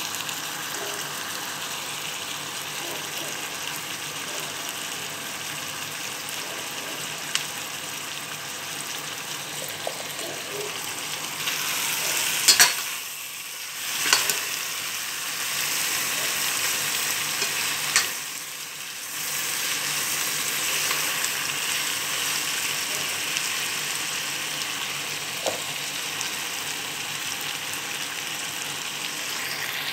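Chicken drumsticks and sliced onions sizzling steadily in a stainless steel pot. A few sharp knocks come about halfway through, each followed by a brief lull in the sizzle.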